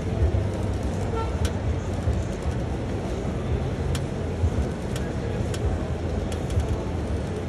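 Steady low din of a busy exhibition hall: a constant rumble of crowd and venue noise, with a few sharp clicks scattered through.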